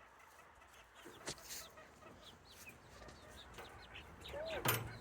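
Hens clucking softly in short, repeated calls, with a sharp tap about a second in and a louder one near the end.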